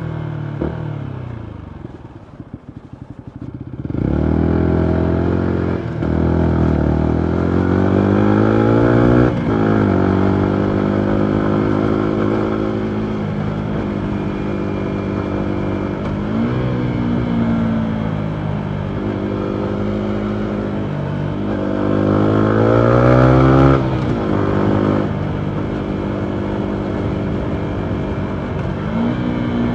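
Yamaha MT125's single-cylinder four-stroke engine through a full Akrapovic exhaust, on the move. It slows with the revs falling and a few crackles on the overrun, then pulls hard about four seconds in. It revs up through the gears, dropping in pitch at each shift, and settles into a steady cruise, with one more rise in revs and a let-off a little past two-thirds of the way through.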